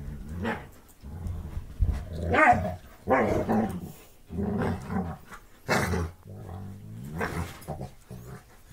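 A husky and another dog play-fighting, giving a run of short, irregular growls and barks as they wrestle and mouth each other.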